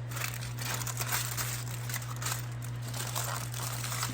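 Aluminium foil crinkling and crackling irregularly as it is folded and crimped around a salmon fillet, over a steady low hum.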